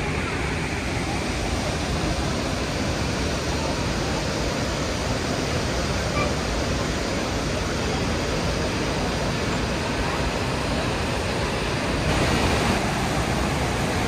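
Savica waterfall's two cascades, dropping about 78 m into their pool, making a steady rush of falling water. It grows a little louder about twelve seconds in.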